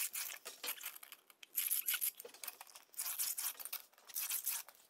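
Red pencil and aluminium level scraping on a rough, brushed mortar scratch coat while level lines are marked, in a series of short scratchy strokes with pauses between them.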